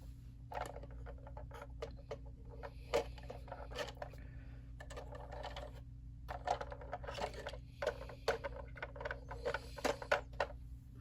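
Toy packaging being handled and pulled apart: crinkling and rustling with many small clicks and taps, pausing briefly about halfway through. A steady low hum sits underneath.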